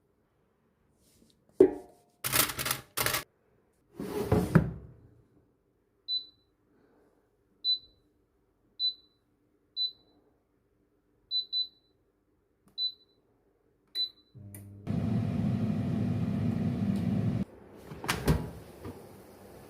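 Air fryer being loaded and set: a few clunks and knocks, then about eight short high beeps from its control buttons, spaced about a second apart. It then starts running with a steady fan noise for about three seconds, which cuts off suddenly, followed by a click.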